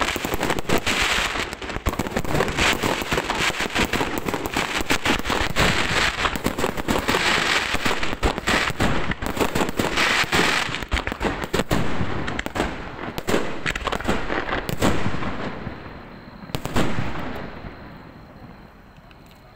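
Aerial fireworks display in a dense barrage of rapid shell bursts and crackling. The bursts thin out late on, two last loud bangs come near the end, and then the sound dies away.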